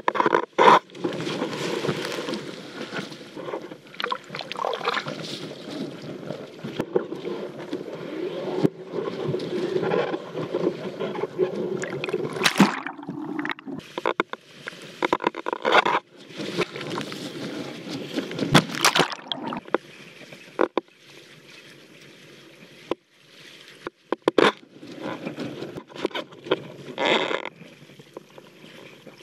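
Water rushing and splashing around a wing-foil board moving through choppy water, in uneven surges, with wind buffeting the microphone of a camera fixed to the hand-held wing.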